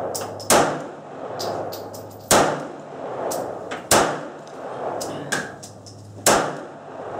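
Polish P-64 pistol in 9×18 mm Makarov firing four shots, one every one and a half to two and a half seconds, each with a short echoing tail. Lighter clinks sound between the shots.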